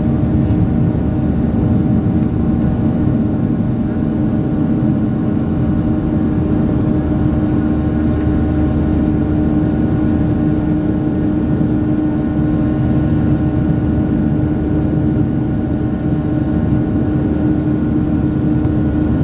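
Boeing 737-700 jet engines (CFM56-7B turbofans) running steadily: a loud, even noise with a constant hum through it, not rising or falling.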